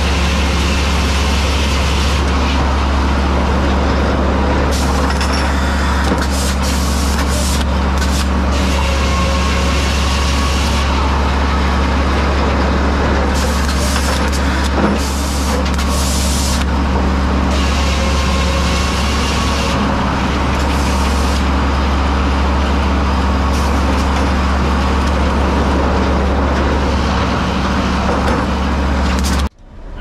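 Frick circle sawmill running: a steady low machine drone with repeated short hissing bursts every few seconds. It cuts off suddenly near the end.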